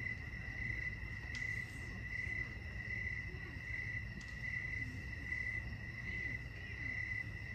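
Crickets chirping at night: a steady high trill that swells and fades in even pulses a little more than once a second, over a low steady rumble.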